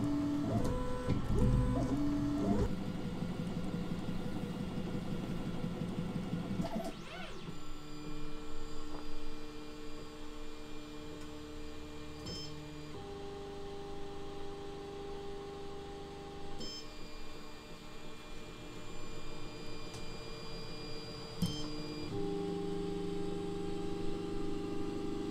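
Tronxy X5SA 3D printer's stepper motors running, a steady whine that holds one pitch for several seconds and then jumps to another as the moves change. The first few seconds are a rougher buzz.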